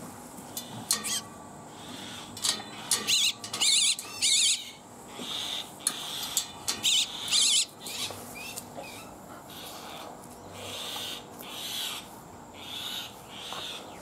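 Indian myna calling: loud, harsh, wavering squawks in bursts through the first eight seconds or so, then softer, shorter calls.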